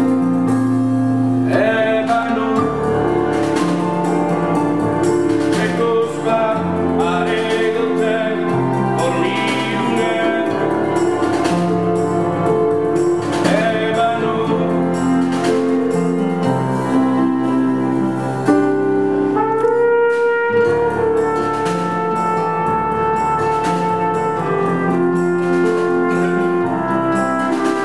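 A live acoustic ensemble of hollow-body guitar, violin, cello, harp and percussion playing an instrumental stretch of a song, with long held melody notes over the chords.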